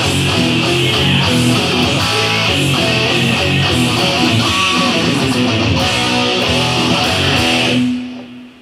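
Hard rock music with a loud distorted electric guitar. The music stops abruptly about eight seconds in, leaving one low note ringing briefly.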